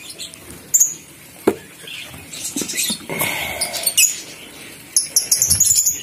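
Small caged birds, lovebirds and budgerigars, chirping and squeaking in rapid high notes that crowd together in the last second. Scattered sharp clicks and knocks from the cage or nest box come between them.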